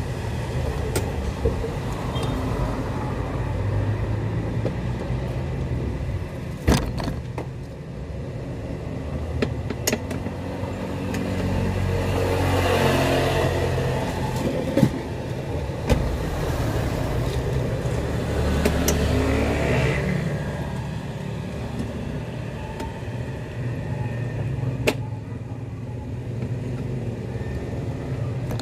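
Car driving, heard from inside the cabin: a steady engine and road rumble that swells twice, about halfway through and again a few seconds later, with a few sharp clicks or knocks.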